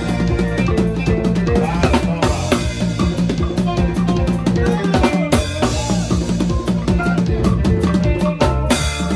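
Live drum kit played fast and busy, with snare, bass drum and cymbals hitting in quick succession, over a sustained bass guitar groove.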